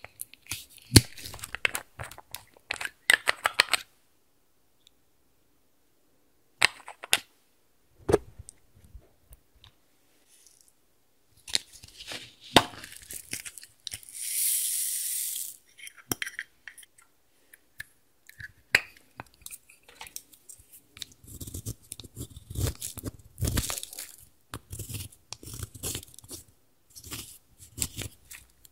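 Clicks, taps and crackles of small plastic and glass containers being handled over a glass dish of slime. About 14 seconds in, a cup of polystyrene foam beads is tipped out in a steady hiss lasting about two seconds. In the last several seconds, pressed eyeshadow is scraped and crumbled out of its pan with a plastic spatula in dense, crunchy crackling.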